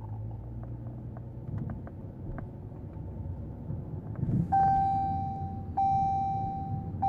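A low background rumble with a few faint clicks, then from about four and a half seconds in an electronic beep that repeats, each long steady tone about a second long, broken by short gaps.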